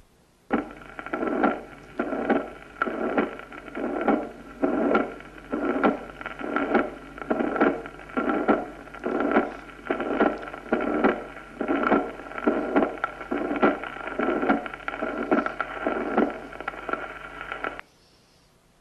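Recorded heart sounds of mitral regurgitation: a pansystolic murmur filling all of systole and obliterating the aortic component of the second heart sound, repeating a little more than once a second over a steady hum and hiss. It starts about half a second in and cuts off shortly before the end.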